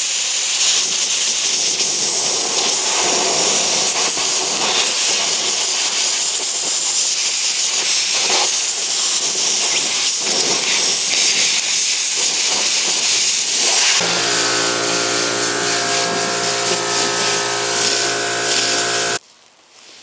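Compressed-air blow gun hissing in one long continuous blast, aimed at the peeling paint on a car's plastic rear bumper. About fourteen seconds in, a steady humming tone joins the hiss, and the blast cuts off abruptly near the end.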